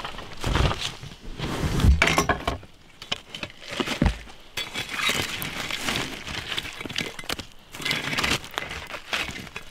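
Footsteps crunching over dry leaves and twigs, with sharp cracks of sticks breaking and a few heavier knocks. Near the end, wood clatters among the embers of a campfire.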